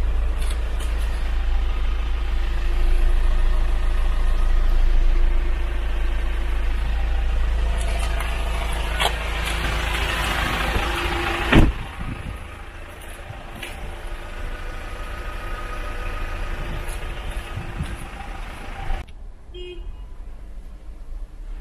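Low, steady vehicle idling hum, then a car door shut with one loud thud about halfway through; after it the sound is quieter and more muffled.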